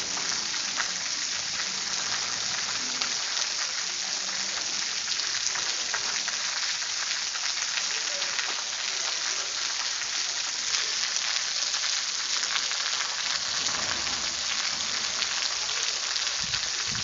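Rain falling steadily: a continuous hiss of drops with a fine, dense crackle of individual hits.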